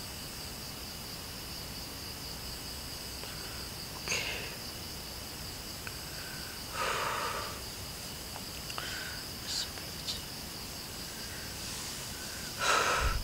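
Night chorus of crickets and other insects: a steady, high-pitched chirring. A few short, soft noises stand out over it, about four, seven and thirteen seconds in, the last the loudest.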